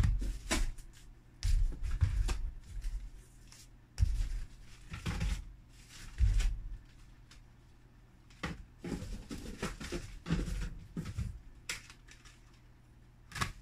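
Small cardboard boxes being handled: irregular bumps and knocks as they are lifted out of a shipping carton and stacked, with some crinkling of plastic bubble wrap.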